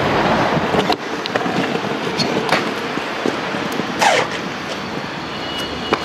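Stunt scooter wheels rolling over paving slabs, a rough steady rumble with a few sharp clacks, the loudest about four seconds in. A thin high whine starts near the end.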